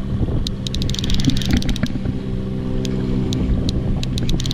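Boat motor running steadily at low trolling speed, with runs of rapid clicking from a conventional trolling reel as a hooked king salmon is fought.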